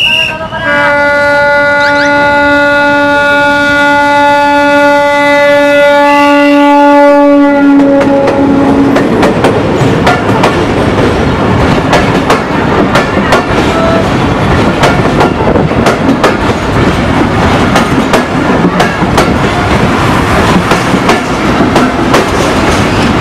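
A brief shrill whistle, then a Bangladesh Railway diesel locomotive sounds its horn in one long blast of about eight seconds as it approaches. The passenger coaches then roll past close by, their wheels clacking steadily over the rail joints.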